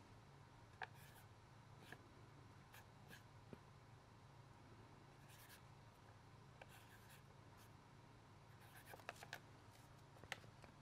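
Faint scratching of a marker pen writing on the paper tops of firework cakes, with a few light taps and clicks, over a low steady hum.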